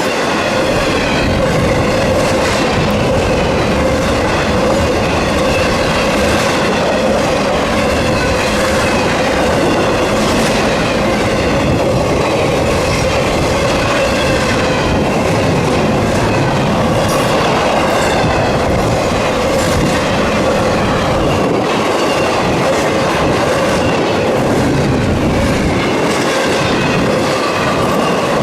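Freight train cars rolling steadily past close by, wheels clicking over the rail joints, with a wavering metallic squeal from the wheels on the rails.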